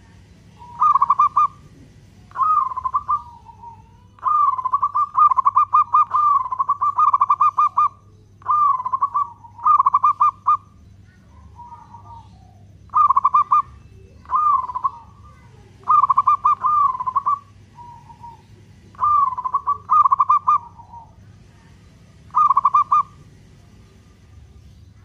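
Local zebra dove (perkutut) singing its long-beat song: phrases of quick rolling coos, one every second or two, with a longer unbroken run about four seconds in and softer lower notes between.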